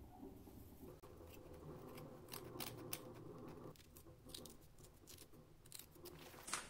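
Scissors snipping through black cloth to trim it around a small frame. It is a faint series of short, crisp cuts, several in a row, with the loudest snip near the end.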